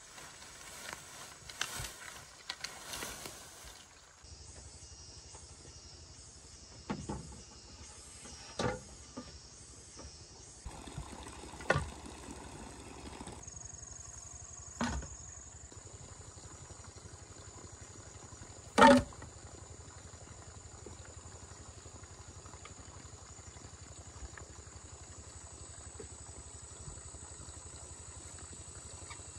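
Insects droning steadily at a high pitch, with a few sharp knocks spaced a few seconds apart, the loudest about two-thirds of the way through.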